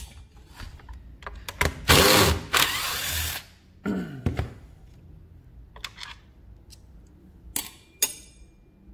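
A cordless screwdriver motor runs for about a second and a half, its pitch swinging up and down, then briefly again with a falling pitch. Sharp knocks and clicks come before and after as the chainsaw is handled.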